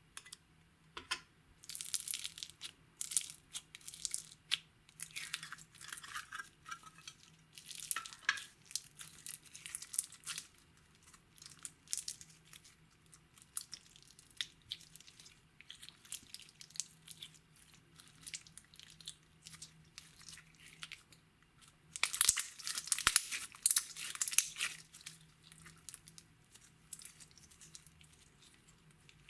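Slime being squeezed, stretched and pressed by hand, giving irregular wet crackles and pops, with a denser run of crackling about three-quarters of the way through.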